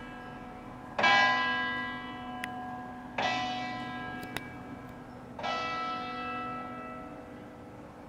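Church tower bell struck three times, about two seconds apart, each stroke ringing on and dying away; the last stroke fades out near the end.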